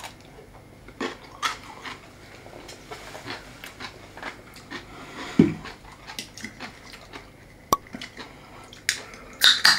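Small handling and eating noises: a crunchy bite and chewing of takuan (yellow pickled daikon), then knocks and clicks as a drink can is picked up and handled, with one thump about halfway and a sharp click a little later.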